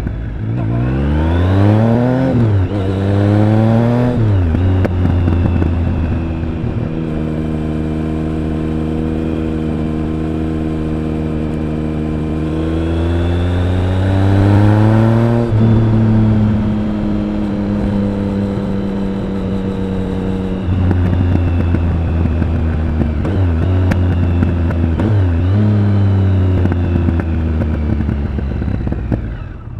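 Triumph Speed Triple 1050's inline three-cylinder engine and exhaust under way. It revs up twice quickly through the gears in the first few seconds, holds a steady note, then pulls up in pitch to about the middle before dropping sharply at a shift or roll-off. It runs at a lower steady note with two brief dips in pitch near the end, then falls away.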